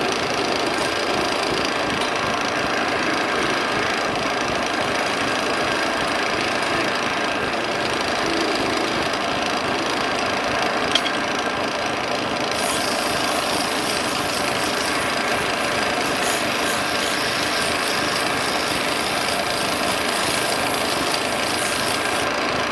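Wood lathe running steadily with a dense mechanical hum and rattle. About halfway through, a high hissing sound joins in and stops shortly before the end.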